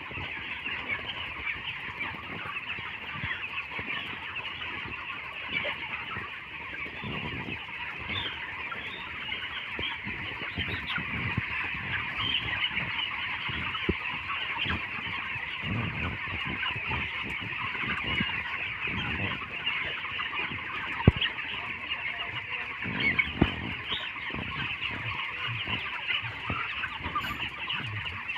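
A large flock of broiler chickens in a poultry house, many birds chirping and clucking at once in a dense, continuous chatter. Scattered low knocks sound among them, the sharpest about 21 seconds in.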